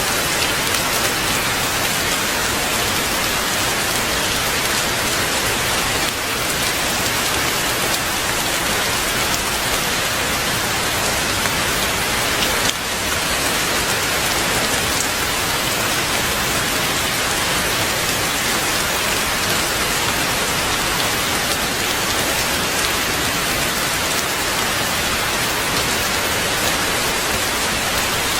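Heavy rain falling steadily, a dense even hiss of drops without pause.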